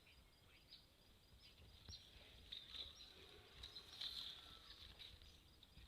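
Near silence: faint outdoor ambience with distant birds chirping now and then.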